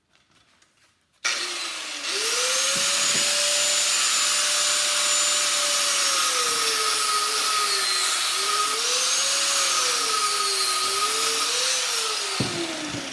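Electric angle grinder starting up about a second in and cutting into the steel of a vacuum cleaner motor to free its copper windings, the whine dipping and recovering in pitch as the disc bites. Near the end it is switched off and winds down with falling pitch.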